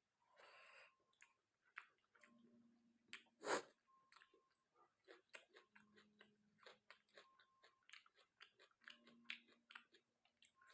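Close-miked chewing of chicken and rice: many small wet mouth clicks and crunches, with one sharper, louder crunch about three and a half seconds in.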